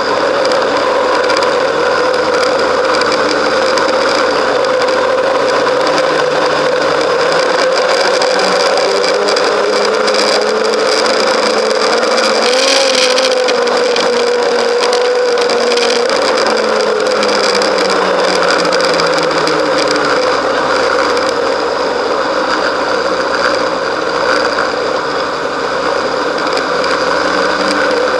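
Snowmobile engine running steadily under way, heard from the sled itself along with its track noise. The engine note climbs gradually toward the middle, then eases back down.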